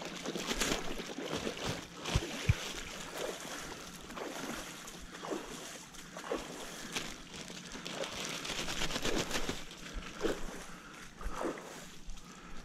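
Shallow creek water sloshing and trickling, with irregular small knocks and splashes.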